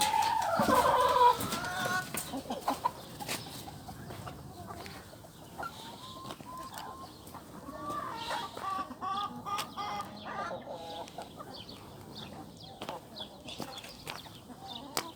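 Village chickens clucking, with a louder drawn-out call in the first second or two and a run of short repeated clucks in the middle.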